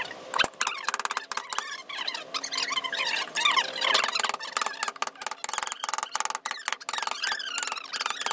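Hand chisel being pushed through soft wood in repeated strokes: crackly cutting sounds with squeaky scraping as the blade slices the fibres.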